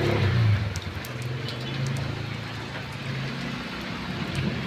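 Rain falling on flooded ground as a steady hiss, with a few small splashes. Under it runs a low steady motor hum that stops about three and a half seconds in.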